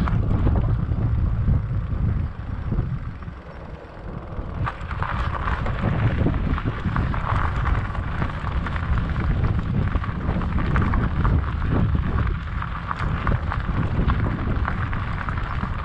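Wind buffeting the microphone of a camera on a moving fat bike, with the tyres rolling underneath. From about five seconds in, the Salsa Mukluk's fat tyres crunch and crackle over a loose gravel track.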